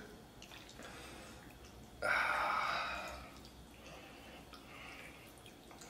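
A man's short, breathy sigh about two seconds in, starting suddenly and fading over about a second, between mouthfuls of braised pork intestines; otherwise only faint sounds from the table.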